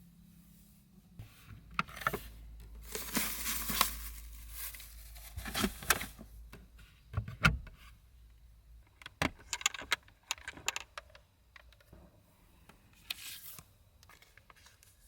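Things being handled at close range in a small space: rustling and crinkling with scattered sharp clicks and knocks, coming in bursts over several seconds.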